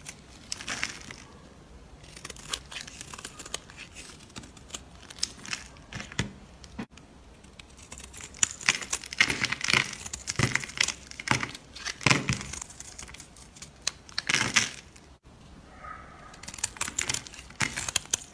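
Slime being squeezed and pulled by hand, giving a run of crackles and pops that is busiest in the middle.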